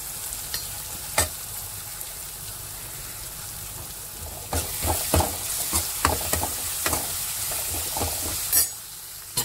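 Sliced onions, tomatoes and green chillies sizzling in hot oil in a metal kadai, with a steady frying hiss. A metal ladle taps the pan once about a second in, then from about halfway scrapes and knocks against the pan in a run of stirring strokes.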